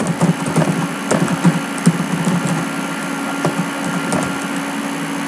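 Typing on a computer keyboard: a run of quick, irregular keystrokes over a steady low hum.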